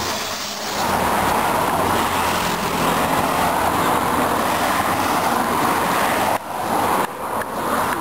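Race-escort motorcycles and cars passing on the road, a steady rush of engine and tyre noise that drops away abruptly twice near the end.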